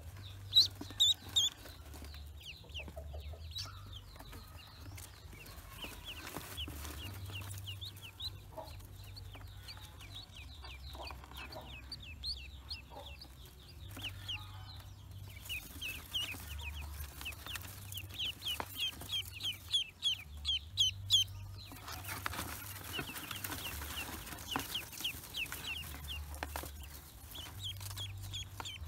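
Newly hatched ducklings peeping: many quick, high-pitched cheeps, coming in fast runs that grow denser and louder after about fifteen seconds.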